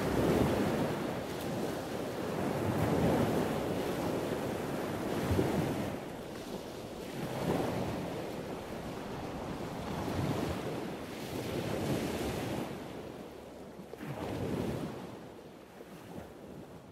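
Ocean surf breaking and washing up a beach, rising and falling every two to three seconds, fading away near the end.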